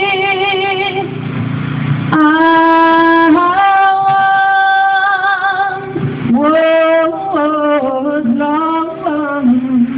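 A woman singing a slow melody in long held notes with vibrato, moving to shorter, changing notes in the second half.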